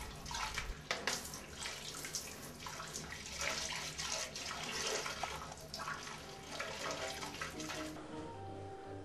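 A steady stream of urine splashing into the water of a toilet bowl.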